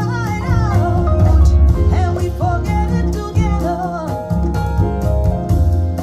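A pop song with a sliding, ornamented vocal over bass, drums and guitar, played back through hi-fi floorstanding loudspeakers.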